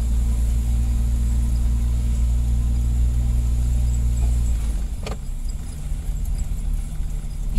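Car engine and road noise heard from inside the moving vehicle: a steady low hum whose note drops and changes a little over halfway through. There is a short click about five seconds in.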